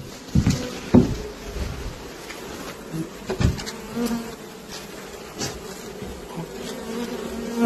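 Honeybees from an opened, crowded nest buzzing in a steady hum, with a few sharp knocks and clicks from handling near the start and middle.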